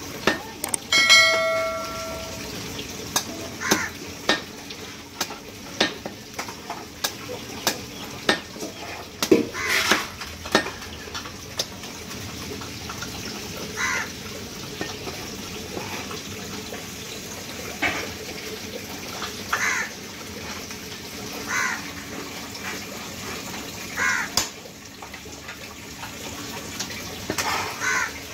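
Heavy butcher's cleaver chopping goat meat and bone on a wooden chopping stump: irregular single strikes, about one a second in the first ten seconds, then every two seconds or so, over a steady background hiss. A brief pitched tone sounds about a second in.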